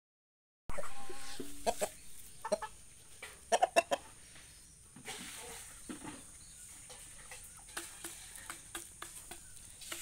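Aseel chickens clucking in short clusters of calls, loudest about three and a half seconds in, with scattered light clicks.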